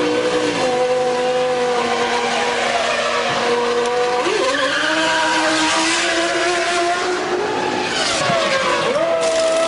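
Formula One V10 engines running at steady revs, the pitch dipping and climbing again about four seconds in and once more near the end, over a hissing noise.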